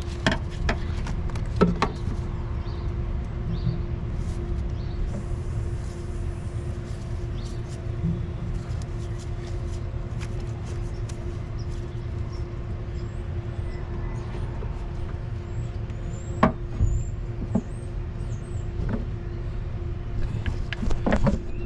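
Steady low rumble of a running motor vehicle engine with a constant hum, broken by a few sharp metallic clicks and knocks. Faint bird chirps come in about two-thirds of the way through.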